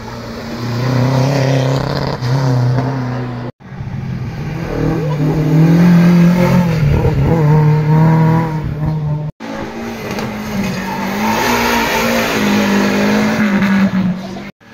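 Historic competition cars, a Renault 5 and then a first-generation Volkswagen Golf among them, each accelerating hard through a bend. Each engine revs up and down in pitch. The sound cuts off abruptly between cars, twice, giving three short passes.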